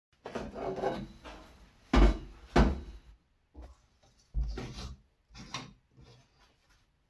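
A bare dirt bike rim scraping and knocking against a sheet-metal blasting cabinet as it is fed in through the side door. Two loud knocks come about two seconds in, then the cabinet door is swung shut and latched with a few more thuds.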